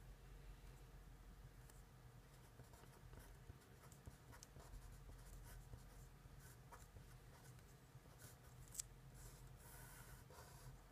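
Faint scratching of a felt-tip Sharpie marker writing on paper, in short strokes, with one sharper tick about nine seconds in. A low steady hum runs underneath.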